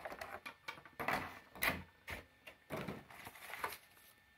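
Clear plastic packaging crinkling and rustling in irregular bursts as it is handled and pulled off a plastic toy stadium.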